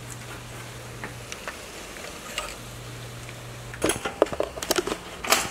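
Metal tools and engine parts clinking and rattling in quick succession, starting about two-thirds of the way in. Before that, a steady low hum is heard twice.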